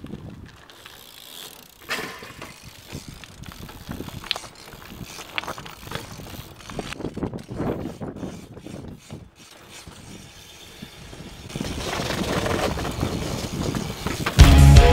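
BMX bike riding on pavement: the rear hub ratchets with irregular clicks, with tyre rolling and scattered knocks from the bike. A louder rushing noise builds over the last few seconds, and loud rock music cuts in suddenly near the end.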